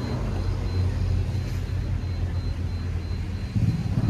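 A motor running with a steady low rumble and a faint, broken high whine. The rumble shifts and grows louder near the end.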